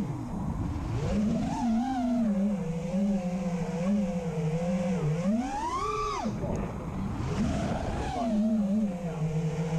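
FPV freestyle quadcopter's brushless motors and propellers whining at a steady buzzing pitch. About five seconds in they surge sharply up in pitch on a throttle punch, then drop back to a lower buzz.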